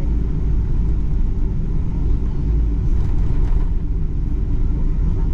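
Steady low rumble of a Boeing 777-300 airliner, its engine and airframe noise running evenly.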